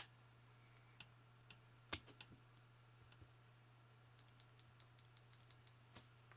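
Light plastic clicks and taps from keyboard parts being handled during a custom mechanical keyboard build. There is a sharper click about two seconds in, then a quick run of about ten light clicks, roughly seven a second.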